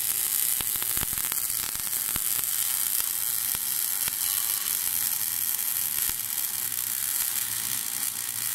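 Robotic arc-welding torch running a weld along a steel fence post: a steady crackling sizzle with frequent sharp pops of spatter.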